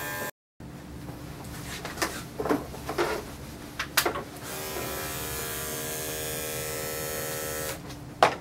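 Electric dog-grooming clippers buzzing steadily as a matted coat is shaved off, with a few sharp clicks and knocks in the first half. The buzz cuts off near the end, followed by a sharp click.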